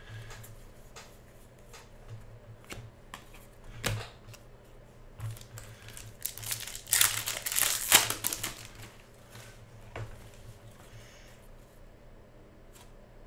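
Foil wrapper of a Panini Contenders basketball card pack crinkling and tearing as it is ripped open, loudest about seven to eight seconds in. Around it, scattered light clicks and taps of cards being handled and fanned.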